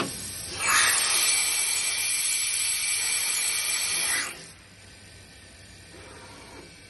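Morbidelli Author 600 KXL CNC machining center working a wooden workpiece: after a short click, a loud, even hiss-like noise without a clear pitch starts about half a second in and cuts off sharply after about three and a half seconds.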